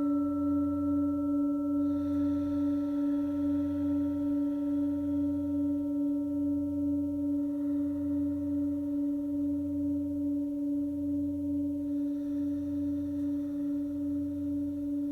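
Tibetan 'circulation' singing bowl, with a raised mound in its centre, ringing in one sustained low tone with fainter higher overtones. The tone pulses in a slow, even wobble and fades gently.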